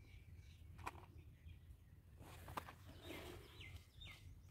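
Near silence with a bird chirping faintly, a few short falling notes mostly in the second half, and two soft clicks about one and two and a half seconds in.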